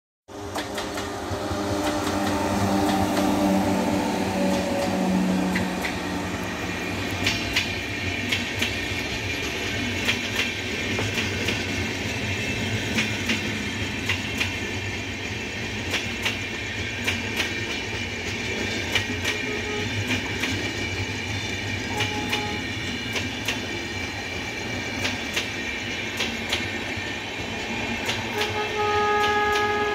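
Indian Railways express train passing on electrified track: the electric locomotive's hum falls slightly in pitch in the first few seconds, then the coach wheels clack rhythmically over the rail joints. Near the end a train horn starts sounding, held steady.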